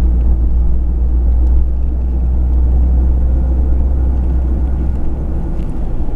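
Cabin noise of a moving passenger vehicle: a steady low road-and-engine rumble that eases a little about five seconds in.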